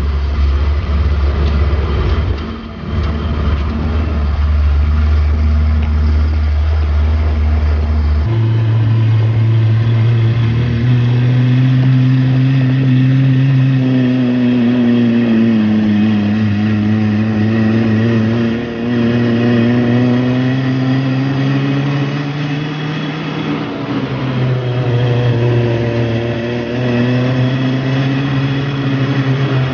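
Motor vehicle engine running while driving, its pitch stepping up about eight seconds in and then rising and falling as it speeds up and slows.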